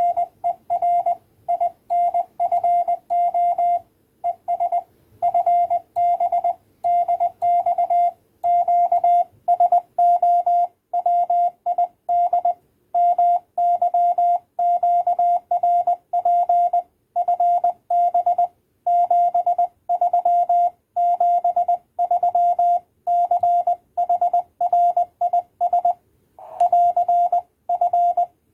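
Morse code (CW) from a QCX Mini 5-watt transceiver on 20 metres: a single clean tone keyed on and off in quick dots and dashes.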